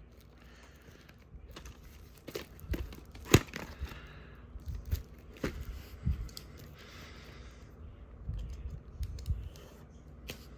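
Packaging being handled and opened: spells of soft crinkling and rustling, broken by sharp light clicks and knocks of plastic.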